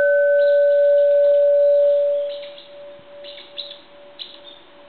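Small bronze Japanese Buddhist temple bell, dated 1792, ringing on after a single strike of its striker: a clear steady tone with one higher overtone. The ring drops off sharply about two seconds in, then lingers faintly for a long time.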